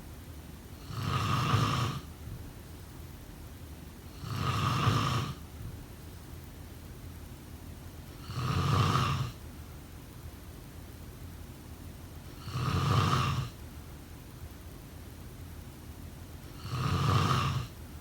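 Snoring: five snores about four seconds apart, each lasting about a second.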